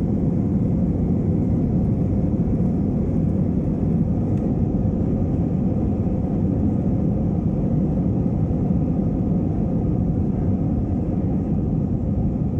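Jet airliner cabin noise heard from a window seat while climbing after takeoff: the engines and airflow make a steady low-pitched noise that does not change.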